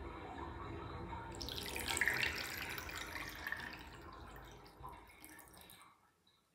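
Bathtub drain slurping loudly as the last of the water and air are sucked down through the plug hole about a second in, fading away, then the drain goes quiet once the tub is empty.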